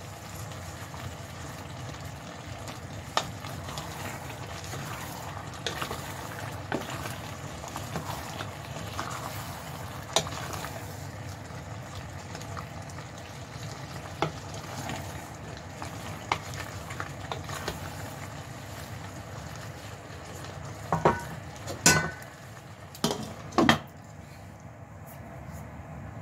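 Beef caldereta stew bubbling and sizzling in a pot while a wooden spatula stirs it, with scattered light knocks of the spatula against the pot. Near the end come a few louder knocks and clacks.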